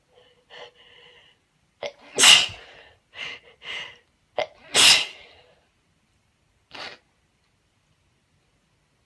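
A woman sneezing twice without covering her mouth, the two loud sneezes about two and a half seconds apart. Each sneeze comes just after a quick catching breath. Faint voiced breaths build up before the first, shorter breaths fall between them, and one brief breath comes near the end.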